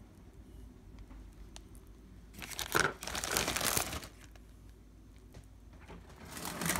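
Plastic bag of melted chocolate crinkling as it is squeezed by hand. A loud stretch of crinkling lasts about a second and a half midway through, and the crinkling starts again near the end.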